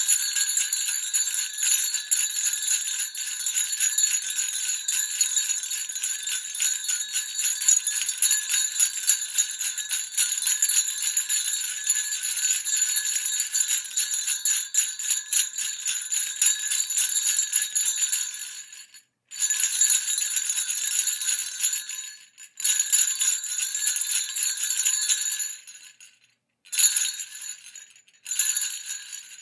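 Sleigh bells shaken steadily in a dense, continuous jingling, then broken into shorter shakes separated by brief pauses during the last third.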